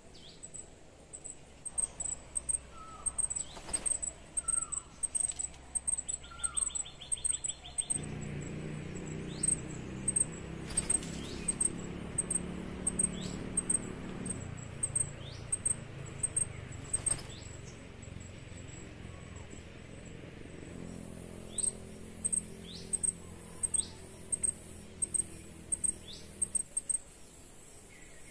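Forest birdsong: a high thin chirp repeats about three times a second, with short falling whistles over it. A low droning hum comes in about a third of the way through and fades near the end.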